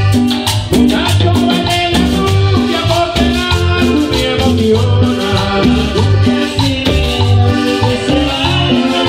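Live cumbia band playing: accordion melody over congas and a metal guache shaker, with a low beat repeating evenly.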